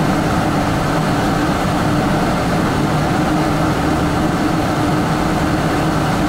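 Cabin noise inside a Boeing 777-200 airliner: a steady drone of engines and air systems with a low, even hum.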